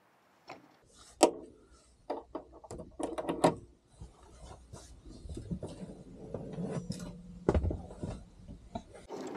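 Knocks, clacks and rustling of objects being handled in a small space, with one sharp knock about a second in and another near the middle-to-late part. A low steady hum runs underneath and stops just before the end.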